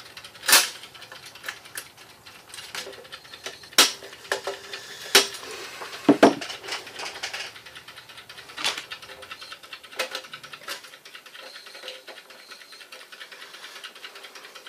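Metal clinks and clatter from the chrome body and sheet-metal base of a 1936 General Electric model 600 toaster being handled and taken apart. Several sharp knocks come at irregular intervals, the loudest about half a second in and between four and seven seconds in, with lighter rattling between them.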